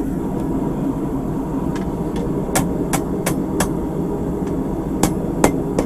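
Hand hammer striking hot 3/8-inch round bar on the anvil, about ten irregularly spaced blows, while the end is forged down into a small hammerhead. A steady low rumble continues underneath.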